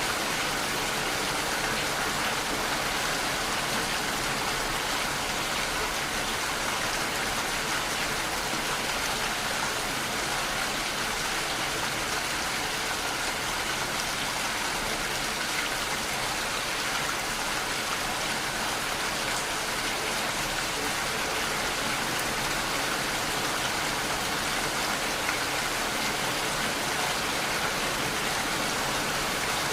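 Steady rain falling with no let-up or thunder, an even hiss of many drops.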